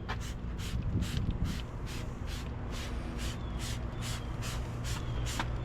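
Trigger spray bottle of tire dressing squirted onto a truck trailer tire in quick, evenly spaced hissing bursts, about three a second, over a low steady hum.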